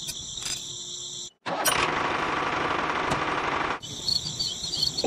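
Insects, crickets or cicadas, buzzing steadily at a high pitch. The audio cuts out abruptly about a second in, and a steady rushing noise takes over. The insect buzz returns near the end.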